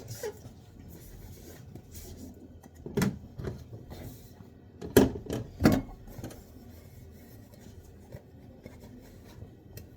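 Dishes being dried with a tea towel and set down: cloth rubbing, with a few hard knocks of crockery or pots, the loudest about halfway through.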